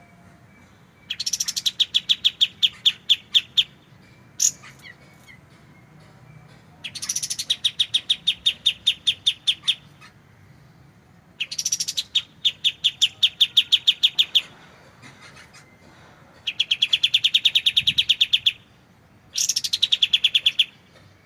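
Kapas tembak bird singing its rapid trilled 'tembakan' phrases: five bursts of fast, evenly repeated notes, about eight a second and each lasting two to three seconds, with short pauses between.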